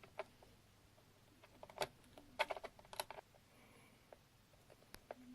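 Irregular light clicks and taps of a small screw and screwdriver against a laptop's plastic maintenance hatch as the hatch screw is fitted, with a cluster of quick clicks near the middle and a few more near the end.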